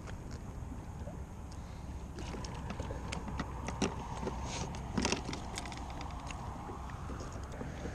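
Scattered clicks and light knocks of a small tautog being handled and unhooked with pliers on a plastic kayak, the loudest about four and five seconds in, over a steady low rumble.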